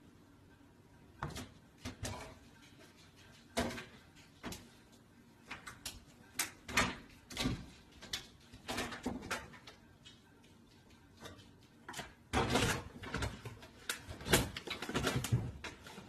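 A series of irregular knocks, bumps and rattles, sparse at first and coming thick and fast in the last few seconds.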